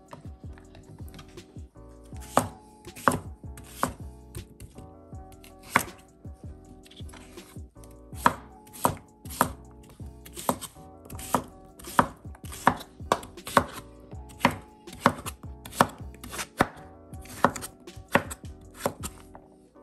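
Chef's knife dicing raw pumpkin on a wooden cutting board: sharp knocks of the blade hitting the board, a few scattered at first, then a steady run of about two a second.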